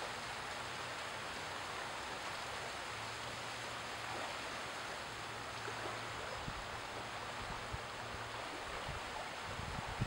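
Small waves lapping and washing over a shallow sand flat: a steady, even hiss of water.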